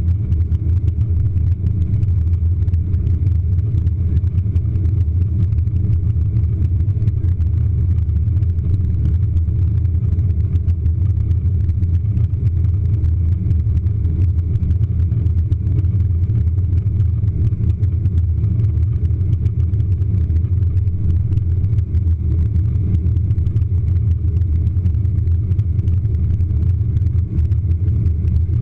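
Steady low rumble of an American Airlines jet airliner heard from inside the passenger cabin during the climb just after takeoff: engine noise and airflow at climb power.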